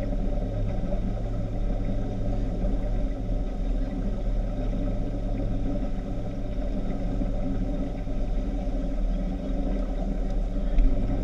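Speedboat engine running at a steady, unchanging pitch, a low hum with no revving.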